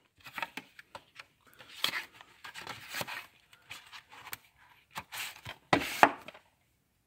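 A plastic DVD case and its cardboard cover being handled: irregular clicks, scrapes and rustles, with the loudest clatter about six seconds in.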